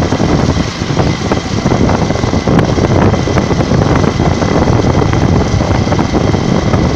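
Steady wind buffeting the microphone over the rumble of a moving vehicle's engine and road noise.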